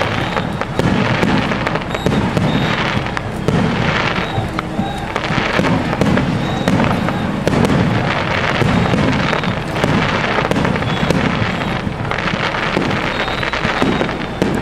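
Fireworks going off in quick succession, a dense run of bangs and crackling with no pause.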